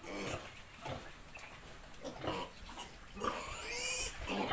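Piglet grunting in short bursts, then giving a longer squeal about three seconds in, while it is held up by its hind legs for an injection.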